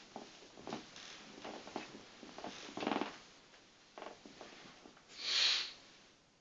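A sleeping person's night noises picked up by a sleep-talk recorder app: soft mouth clicks and bedding movement, a short throaty sound about three seconds in, and a loud breathy exhale a little after five seconds.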